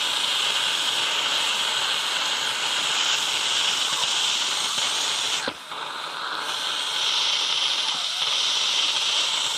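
Instant Pot electric pressure cooker doing a quick pressure release, steam hissing steadily from its release valve under a paper towel. The hiss dips briefly about halfway through.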